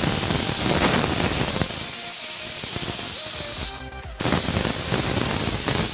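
Pressure cooker whistling: steam blasting out under the weight valve in a loud, steady hiss, the sign that it is up to pressure and the spinach inside is cooking. The hiss breaks off briefly about four seconds in, then starts again.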